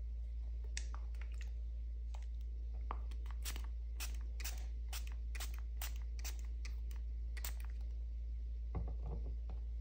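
Fingertip pump-spray bottle of oily clove mosquito repellent being sprayed over and over, a quick run of short hisses about three a second, followed near the end by a brief knock of the bottle being handled. A steady low hum runs underneath.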